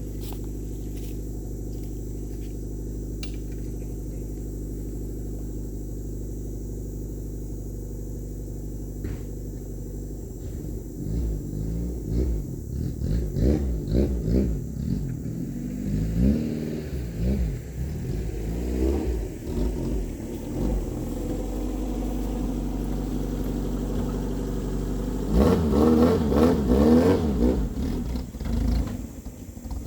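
Fiat 147 pickup's four-cylinder engine idling steadily, then revving up and down repeatedly as the truck pulls away and drives off. Near the end it revs louder.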